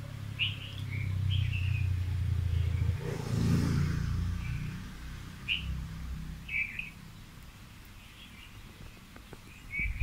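Birds chirping in short, scattered calls over a low motor rumble. The rumble swells about three and a half seconds in, then fades away, leaving only the bird chirps.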